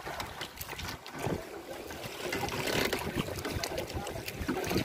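Wind buffeting the microphone over choppy sea, with water sloshing against a small outrigger boat's hull; an uneven, gusting noise with no engine tone.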